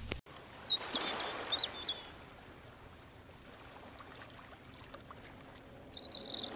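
Outdoor night ambience: a soft, steady rushing noise, with a few short high chirps about a second in and again near the end.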